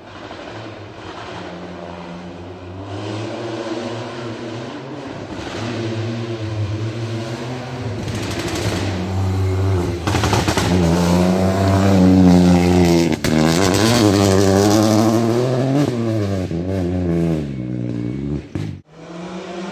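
Rally car approaching and passing at speed on a gravel stage, its engine revving up and dropping back with each gear change. It grows steadily louder, is loudest as it goes by, then fades away, and the sound breaks off abruptly near the end.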